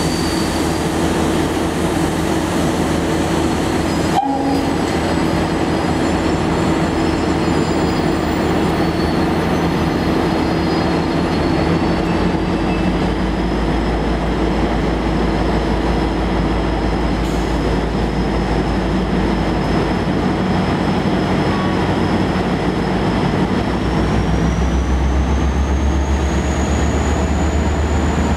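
A train running at the station: a loud, steady drone that steps up in level and pitch about two-thirds of the way through. A thin high whine glides upward over it, and there is a single sharp click about four seconds in.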